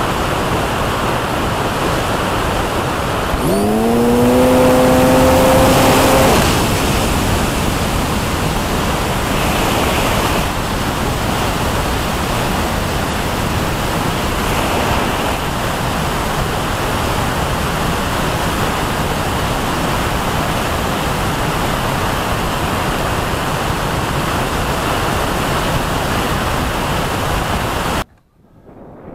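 Steady rushing airflow over an RC glider's onboard camera microphone in flight. About three and a half seconds in, a humming tone rises in pitch and holds for about three seconds before stopping. Near the end the sound drops off abruptly to a much fainter rush.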